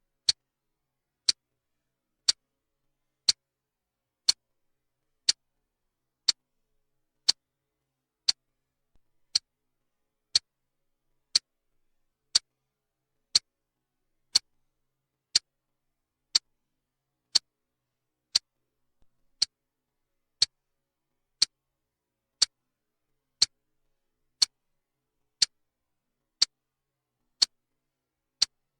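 Clock-style ticking, one sharp tick each second in a steady, even rhythm with silence between, marking off a countdown. Twice, a much fainter click comes just before a tick.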